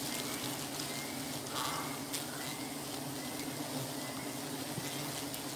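Steady hum of a honey bee colony swarming around an exposed wild comb as it is being harvested.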